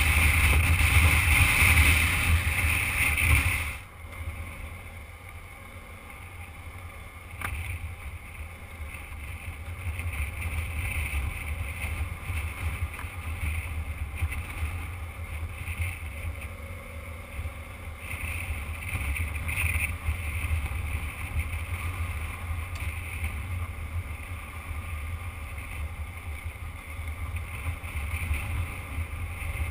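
Motorcycle riding on a gravel road: steady wind rush and engine noise picked up by a bike-mounted camera. It is loud for the first few seconds, then drops sharply and settles lower, with a single click about seven seconds in.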